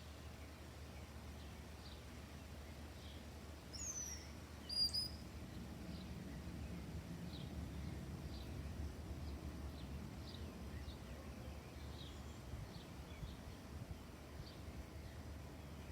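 Suburban outdoor ambience: a steady low background rumble with a faint high chirp repeating about every half second to second. Two louder, sharp bird calls come about four and five seconds in.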